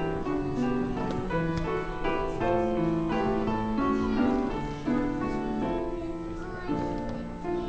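Instrumental music led by piano, a slow melody of held notes over a chord accompaniment.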